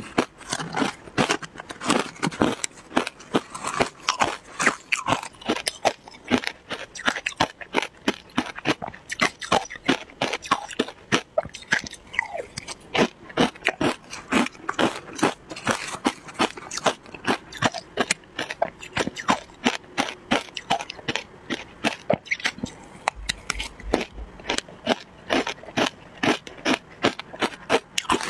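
Shaved ice being chewed close to the microphone: a continuous run of crisp crunches, several a second, mixed with a metal spoon scraping and scooping through the ice in a plastic tub.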